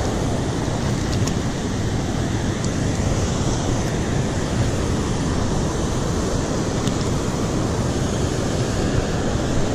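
Steady rush of flowing river current, an even wash of water noise that holds level throughout.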